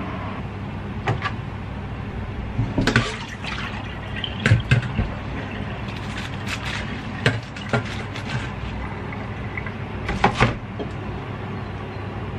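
A kitchen knife cuts the roots off a head of lettuce and the leaves are handled over a stainless steel sink: scattered clicks, knocks and rustles, with small clusters around the middle and near the end, over a steady hiss.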